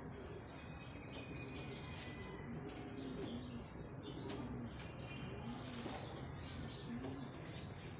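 Pigeons cooing, a few short low coos in the middle stretch, with short high bird chirps around them.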